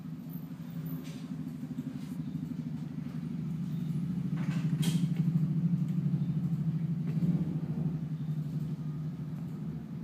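Energized Kromschröder VAS 125 gas solenoid valve coils humming steadily on 230 V AC mains, growing louder in the middle. A sharp click sounds about five seconds in.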